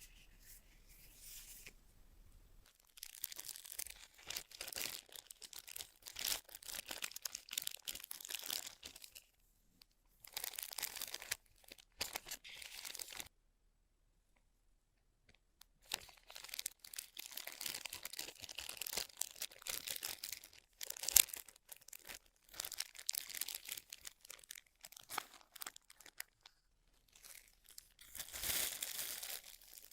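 Packaging being handled: wrapping crinkled and torn in irregular bursts with short pauses, and one sharp click about two-thirds of the way through.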